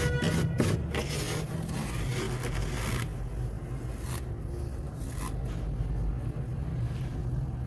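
Fingers scraping and scooping loose freezer frost off the freezer floor: a gritty, zipper-like scrape for about the first three seconds, then quieter crunching as the frost is pressed into a handful. A steady low hum runs underneath.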